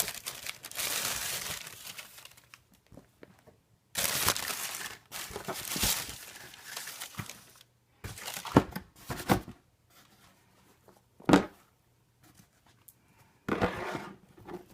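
Sneaker packaging being handled as the shoes are unwrapped: paper rustling and crinkling in long bursts. Several sharp clicks follow about halfway through, then one loud knock at about eleven seconds and a last rustle near the end.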